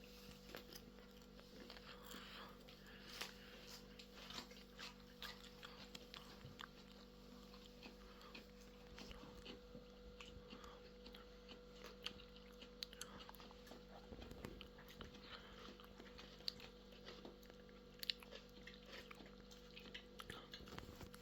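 Faint crunching of microwave popcorn being chewed, with small irregular crunches throughout over a low steady hum.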